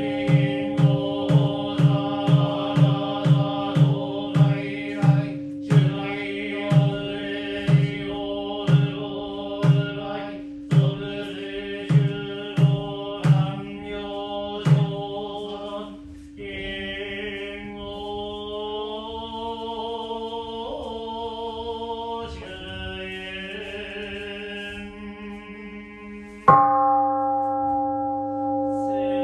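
Buddhist sutra chanting by priests, over a regular percussion beat that runs at about two strikes a second, slows, and stops about halfway through. The chant then carries on in long drawn-out notes, and near the end a large temple bowl bell (keisu) is struck and rings out.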